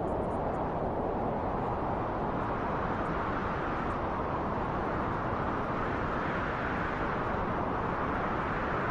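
Steady wind noise, a deep even rush with no distinct events, swelling slightly brighter about two-thirds of the way through.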